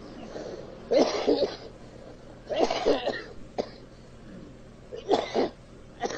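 A person coughing: three loud coughing bouts, with a short single cough between them and another near the end.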